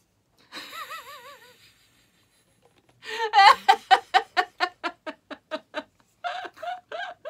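A brief wavering vocal sound, then about three seconds in a woman bursts into loud laughter. The laughter runs on in quick, even ha-ha pulses, about five a second.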